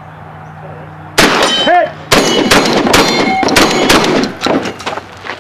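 A fast string of shotgun shots, several in about three seconds, starting about a second in, with steel targets ringing when hit.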